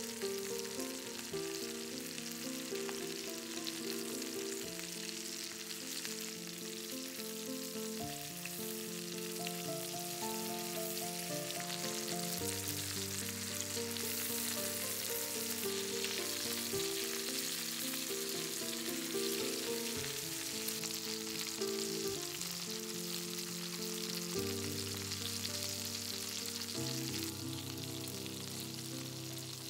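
Chicken drumsticks frying in butter and olive oil in a cast-iron skillet: a steady sizzle, with soft melodic background music over it.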